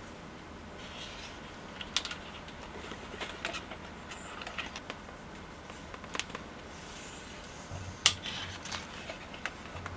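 Small handling noises on a workbench: scattered light clicks and taps as wiring is handled, with sharper clicks about two seconds in and about eight seconds in.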